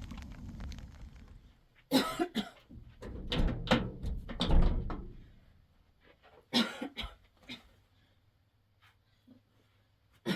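A woman with a severe, worsening cough, coughing in three fits of sharp repeated coughs, the last fit ending about seven and a half seconds in.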